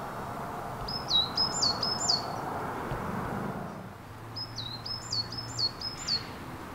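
A songbird singing two short phrases, each of three or four high, down-slurred whistled notes, a few seconds apart, over a steady outdoor background hiss.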